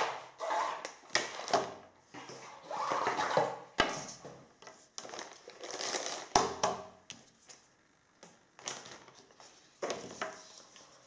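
Handling noise as a gaming mouse and its cable are taken out and laid on a table: irregular rustling in separate spells, with a few sharp knocks.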